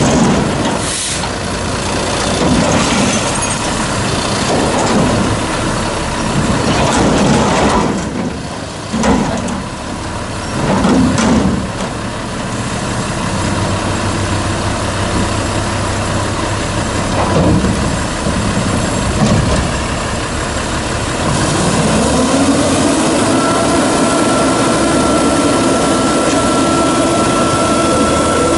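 Garbage truck diesel engine revving up and down repeatedly to drive the Amrep front loader's hydraulic arms as they lift a dumpster over the cab and shake it out, with several metallic bangs from the container. From about 22 seconds in the engine holds high revs, and a thin steady whine sits on top.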